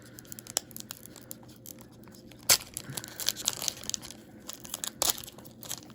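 Plastic wrapper of a hockey card pack crinkling and tearing as it is ripped open, with scattered small clicks and a sharp snap about two and a half seconds in and another near the end.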